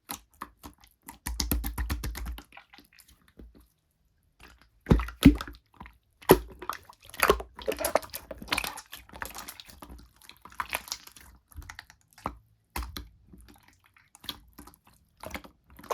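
Slime being played with by hand: irregular sticky clicks, pops and squishes, in clusters with short pauses.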